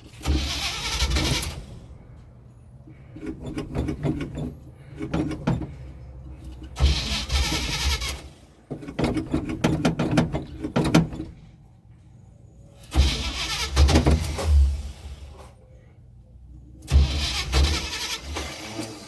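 1984 Chevrolet engine being cranked by its starter in several separate bursts of a second or two, with pauses between, and not settling into running: a hard start.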